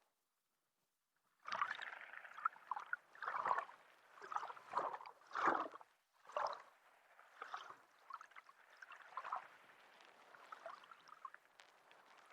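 Water bubbling and gurgling as heard underwater, in irregular swells. It comes in suddenly after about a second and a half of silence, is strongest in the first half, then settles to smaller bubbling.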